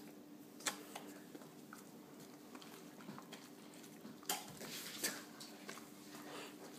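A few faint, sharp clicks and smacks, the loudest about a second in and about four seconds in, over a low steady hum.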